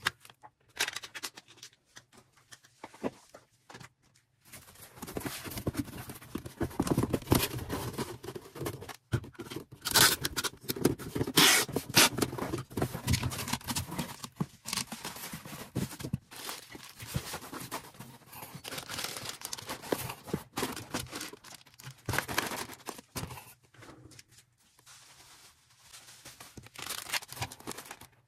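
Hands packing an order: packaging rustling and crinkling, with scrapes and sharp clicks. It is sparse at first and turns busy about four seconds in.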